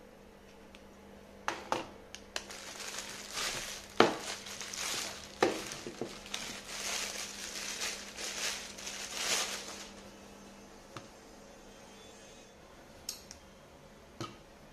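Clear plastic wrapping crinkling and rustling as a folded tripod is handled and pulled out of it, with several sharp knocks of the tripod against the table. Near the end, two short clicks as the tripod is handled.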